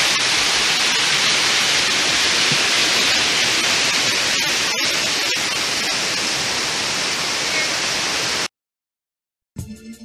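Steady rush of a creek cascading over boulders in a small waterfall, cutting off abruptly about eight and a half seconds in. After a second of silence, music with a beat begins near the end.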